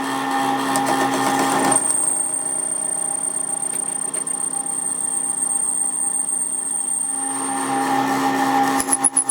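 A workshop machine running steadily with a low hum. Rough, noisier stretches come in the first two seconds and again near the end, and a thin high whine holds in between.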